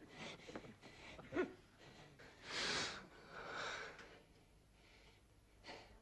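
A man breathing heavily in short sharp breaths. The loudest comes about two and a half seconds in, with a weaker one about a second later.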